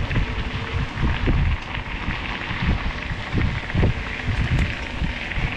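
Mountain bike ridden along a dirt trail: wind buffeting the microphone in an uneven rumble, with irregular knocks and rattles from the bike going over bumps.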